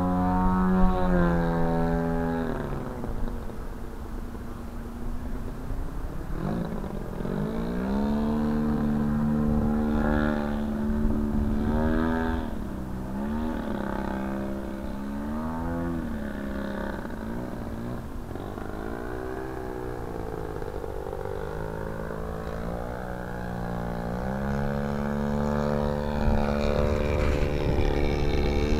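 Engine and propeller of a 40%-scale Sbach aerobatic model airplane in flight, its pitch rising and falling with throttle changes and passes through the manoeuvres; it drops away about three seconds in, dips again twice, and climbs back up near the end.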